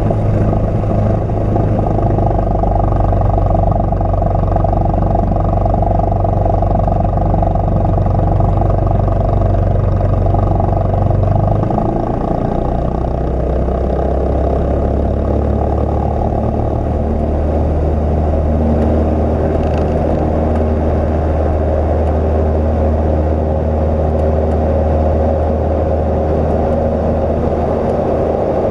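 Cessna 172's piston engine and propeller running steadily, heard from inside the cockpit as the plane taxis onto and rolls along the runway. About twelve seconds in, the engine note steps down to a lower pitch and holds there.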